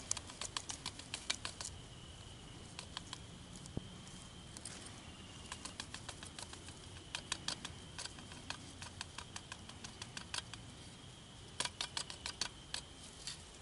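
Faint bursts of quick, dry scraping clicks from a carbon steel knife blade worked against smouldering tinder held in the hand, in several short runs.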